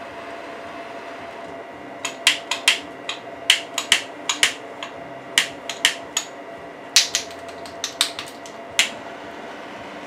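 Sharp lip pops and smacks of a cigar being puffed alight over a torch lighter: about twenty in irregular clusters of two or three, starting about two seconds in and stopping near the end.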